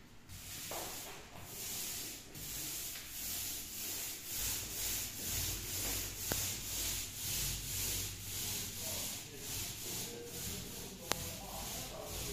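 Small paint roller rolling paint up and down a wall for a second coat: a rhythmic swishing, about two strokes a second, with two short clicks along the way.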